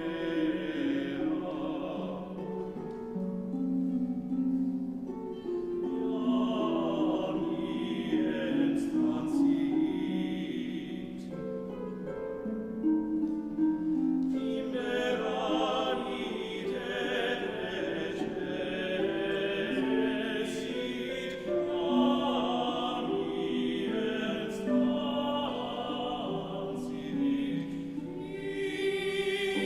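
Choir singing sacred music, the voices held with vibrato.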